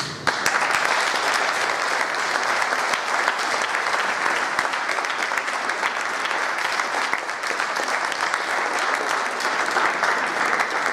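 An audience applauding: many hands clapping together, breaking out suddenly and keeping up a steady level.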